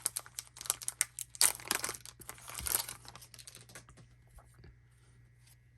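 A trading card pack's wrapper being torn open and crinkled, a dense run of crackling for about three seconds, then fading to a few faint clicks and rustles as the cards are handled.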